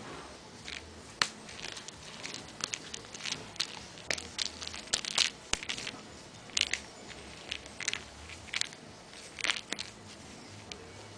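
Irregular crinkling crackles and clicks as a two-month-old Maine Coon kitten chews and paws at a small yellow toy, with the densest run in the middle.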